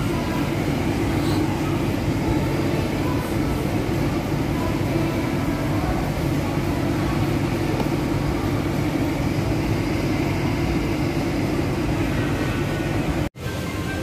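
Steady low rumble with a droning hum, like a moving vehicle heard from inside.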